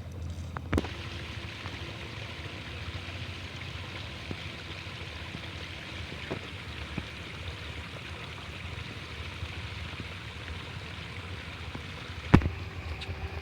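Water pattering and running steadily, like rain on a surface, starting just after a knock about a second in. A single sharp knock sounds near the end.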